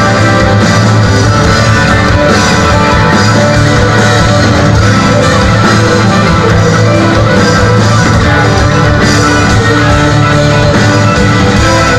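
Loud live progressive rock band playing an instrumental passage: electric guitars, bass, drums, keyboards and violin together, without vocals.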